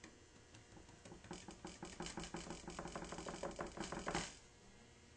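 A butter knife tapping quickly through salt dough against the work surface as the outline is cut: a run of short taps, about seven a second. It grows louder and stops abruptly about four seconds in.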